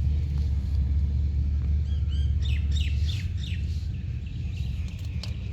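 A small bird singing a quick run of about six short, falling chirps about two seconds in, over a steady low rumble that eases off about three seconds in.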